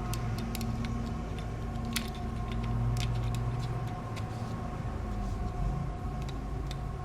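Light, scattered clicks of small phone parts being handled and fitted, over a steady low electrical hum with a faint constant tone.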